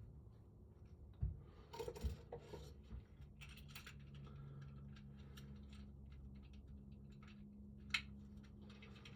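Small clicks and knocks of lock parts and tools being handled on a work surface, a few seconds apart, with a low steady hum starting partway through.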